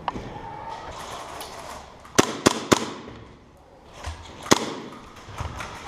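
Airsoft guns firing in a firefight: three sharp snaps in quick succession about two seconds in, another about a second and a half later, with fainter snaps around them.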